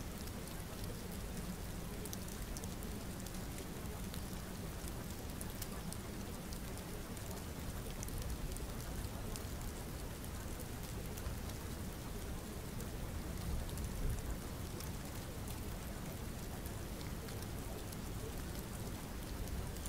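Steady rain: an even hiss with fine scattered drop ticks, unchanging throughout.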